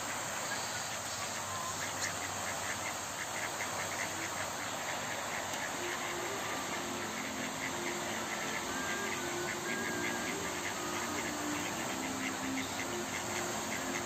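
Mallard ducks calling softly, short low calls from about six seconds in, over a steady outdoor hiss. A fast, high ticking runs from about two seconds in until near the end.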